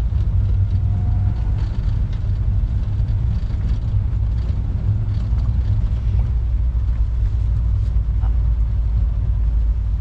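Old SUV driving, heard inside the cabin: a steady low engine and road rumble with faint rattles.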